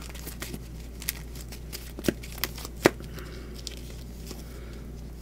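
A small deck of cards being shuffled by hand, with a few sharp card clicks and snaps.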